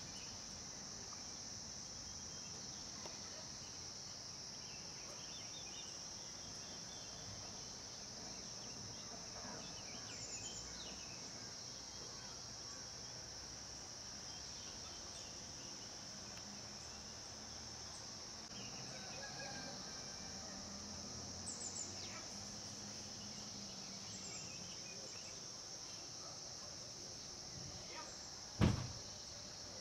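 Steady high-pitched drone of insects, with a few faint short chirps scattered through it, and a single sharp thump near the end.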